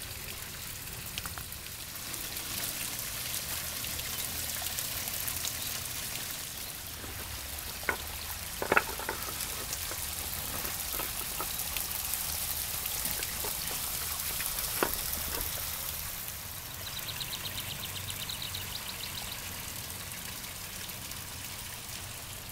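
Water from a backyard pond's waterfall splashing and trickling steadily. A few sharp clicks come through, and a short high trill is heard about three-quarters of the way through.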